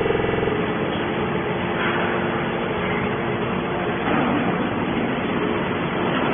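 Machinery running steadily: a continuous mechanical din with a faint humming tone in it. A stronger hum stops within the first half-second.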